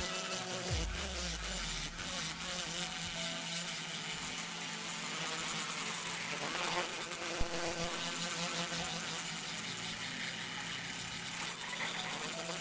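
Handheld electric rotary grinder with a small burr bit running at high speed, grinding out the aluminium port of a Yamaha Jupiter Z cylinder head: a steady whine as the bit cuts.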